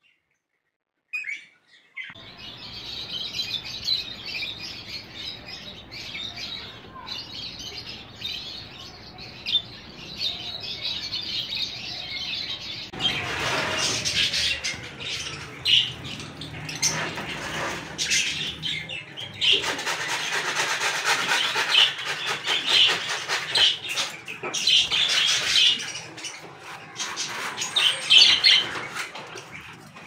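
Lutino Fischer's lovebirds chirping: a run of rapid, high-pitched chirps and twitters that begins about two seconds in and grows louder and denser about halfway through.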